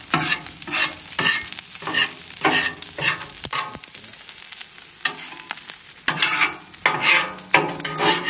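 Metal spatula scraping and clanking against the steel plate of a Blackstone flat-top griddle while stir-frying rice, ham and vegetables, in uneven strokes about once or twice a second with a sparser stretch around the middle, over a sizzle of frying in oil.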